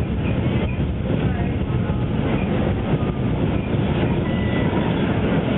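KiHa 20 diesel railcar running at speed, heard from inside the carriage: a steady rumble of engine and wheels on rail.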